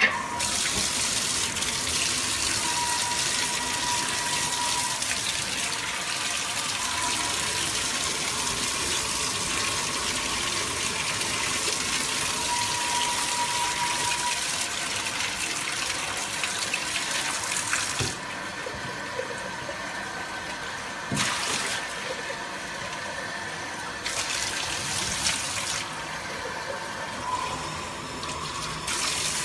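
Running tap water rinsing a puppy in its bath, a steady hiss. In the second half the hiss dulls for several seconds at a time and comes back briefly.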